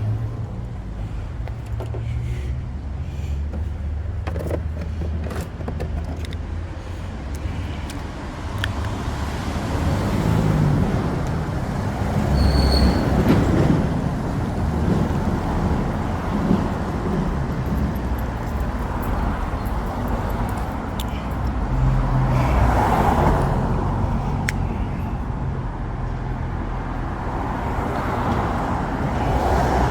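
Road traffic noise: a steady low rumble of car engines and tyres, swelling louder for a few seconds about a third of the way through and again near three-quarters of the way through.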